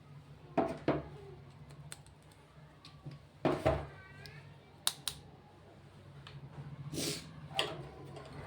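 Makeup packaging and cases being handled: a scattered series of short taps and clicks of plastic and cardboard, over a steady low hum.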